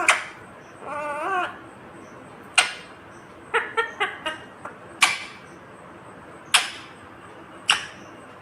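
Indian ringneck parakeet calling: about five sharp, shrill squawks a second or so apart, with a short warbling chatter about a second in and a quick run of short calls near the middle.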